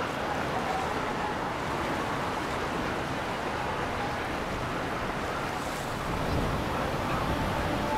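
Steady rush of wind and water on the river, with no single distinct event; it grows a little louder and deeper about six seconds in.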